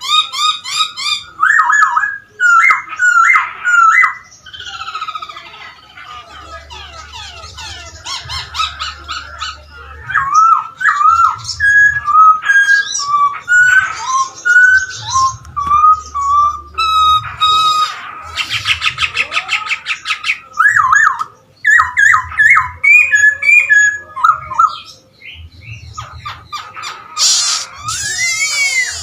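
Poksay Hongkong, a laughingthrush, singing loudly and continuously: varied rising and falling whistled phrases and fast trills, broken twice by harsh, buzzy chattering notes.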